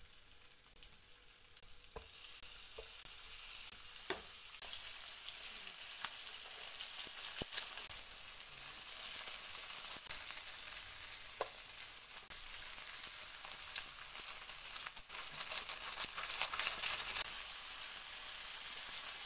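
Chicken seekh kababs sizzling as they shallow-fry in a little oil in a nonstick pan. The sizzle starts faint and grows louder over the first few seconds, then runs on as a steady crackling hiss. A few light clicks come through as the kababs are placed and turned with tongs.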